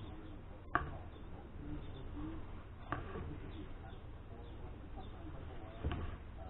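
Three sharp knocks about two to three seconds apart, over a quiet background with faint bird cooing.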